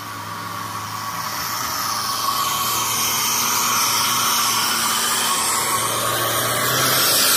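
Small pickup truck heavily loaded with logs climbing a steep grade, its engine working hard under load with a whining, hissing note. It grows steadily louder as it draws close and passes.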